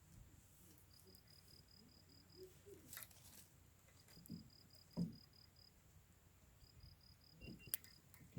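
A cricket chirping in three regular high-pitched trains, each about eight quick pulses over a second or so, repeating every two to three seconds. Faint campfire crackles and a sharp wood pop near the end sound under it.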